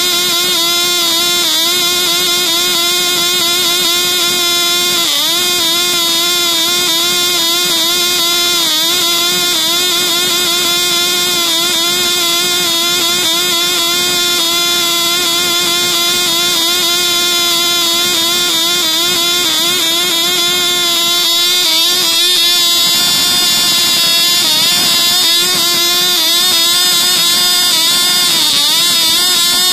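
Cox Tee Dee .010 miniature two-stroke glow engine running flat out with a steady high-pitched whine, its pitch dipping briefly now and then. It is running a little rich.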